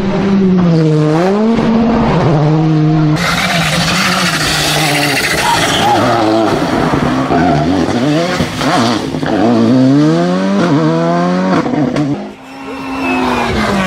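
Rally car engines revving hard, the pitch climbing and dropping through gear changes and lifts, with loud tyre and gravel noise. About three seconds in the sound switches abruptly to another car, and near the end a car passes by with a slowly falling engine note.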